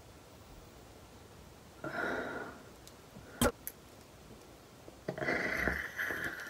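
Two breaths drawn through the nose around garlic cloves pushed into the nostrils: a short one about two seconds in and a longer one near the end. A single sharp click comes between them.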